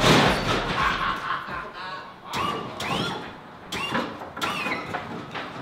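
Car hydraulic suspension at work: the pump motors give several short whirs, each with a brief rising whine, along with clunks as the rear end lifts and drops. The first second is the tail of loud hip hop music.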